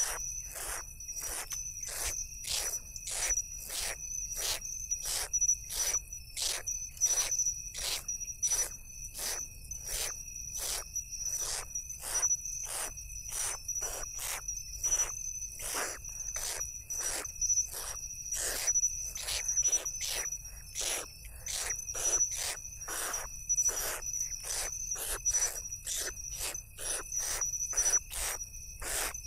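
Owl chicks giving short hissing begging calls, repeated evenly about twice a second while being fed, over a steady high insect trill.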